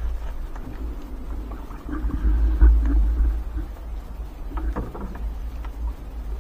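Wet fishing net being hauled by hand over the side into a small wooden boat, with splashing and rustling over a steady low rumble that is loudest two to three seconds in.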